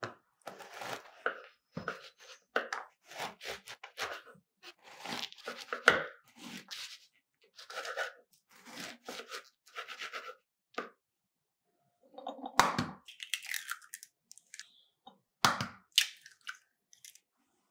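Knife sawing through a crusty, stale baguette on a wooden cutting board, the crust crunching with each stroke in a long run of short bursts. Later, two eggs are cracked on the rim of a bowl, each giving a sharp crack.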